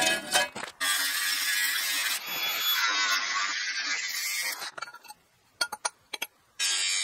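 A steel tube frame clatters onto concrete at the start. Then a Makita cordless angle grinder with a cut-off disc cuts into steel tubing for about four seconds. After a few short knocks it cuts again near the end.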